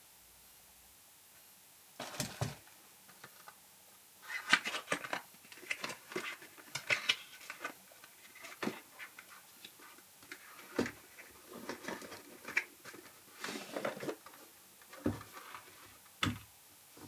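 Hands unpacking and handling a camera filter kit: an irregular run of clicks, taps and rustles from the case, filters and packaging, starting about two seconds in, with a few sharper knocks.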